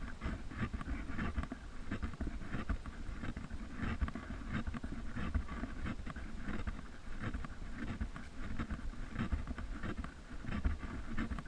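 Rumbling handling and wind noise on a hand-held action camera's microphone, with dense irregular scuffs and taps as the camera is moved about.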